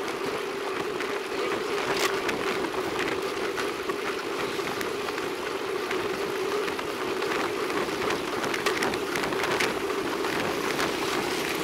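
Steady rolling noise of a road bicycle on a concrete road, heard through a bike-mounted camera: tyre hum and wind, with scattered sharp clicks.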